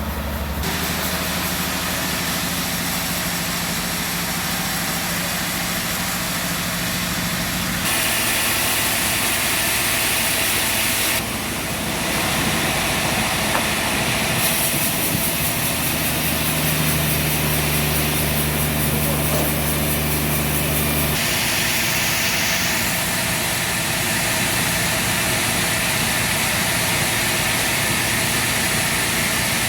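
Sawmill saw running and cutting through a trembesi log: a steady machine drone under a hissing cutting noise. The pitch and level shift abruptly several times.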